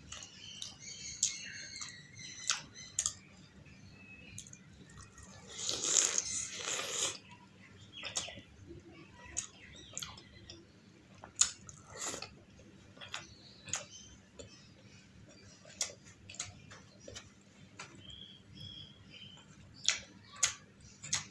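Close-miked eating sounds: wet chewing and sharp mouth clicks as puri soaked in egg masala gravy is eaten, with a louder noisy stretch of about a second about six seconds in.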